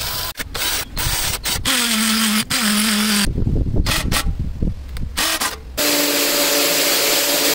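Foster FK 38-21 21V cordless drill running in a string of short clips that start and stop abruptly: drilling into wood, driving a screw and boring into a wall, with the motor's whine changing from clip to clip. Near the end the motor gives a steady whine.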